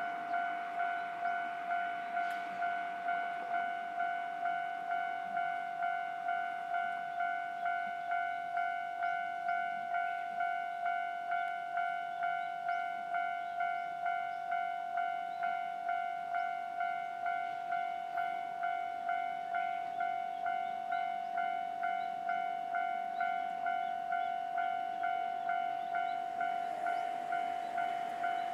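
Japanese railway level-crossing warning bell ringing steadily, one pitched tone repeating evenly about one and a half times a second: the signal that a train is approaching and the crossing is closed.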